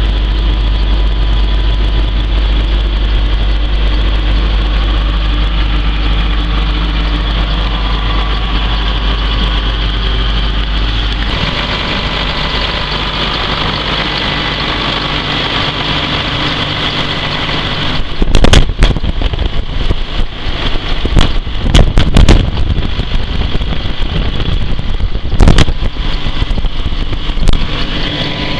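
Challenger MT645C tractor's six-cylinder diesel engine idling steadily, heard first from inside the cab and, from about 11 seconds in, from outside beside the open engine bay. Later, a run of loud sharp knocks and crackles comes on top of the idle.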